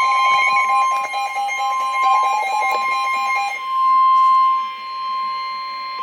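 Emergency Alert System warning tone: one continuous high steady tone. Over it, a rapid stuttering pattern of beeps on two other pitches stops about halfway through, then starts again right at the end.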